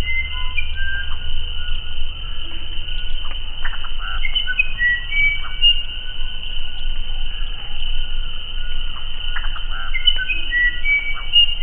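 Uirapuru (musical wren) singing: phrases of clear, flute-like whistled notes that jump between pitches, with a few short rattling notes mixed in, repeating every few seconds. A steady high-pitched insect buzz runs underneath.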